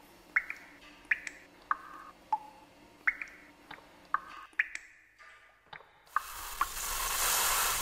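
Water dripping from a tap: single drops plinking about every half second, each with a short ringing note whose pitch changes from drop to drop. About six seconds in, a hiss swells up and grows louder.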